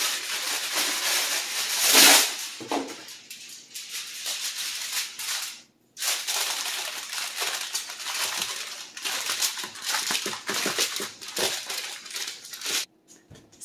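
Aluminium foil crinkling and rustling as it is pressed and crimped down over the edges of a baking dish, loudest about two seconds in, with a brief break near the middle.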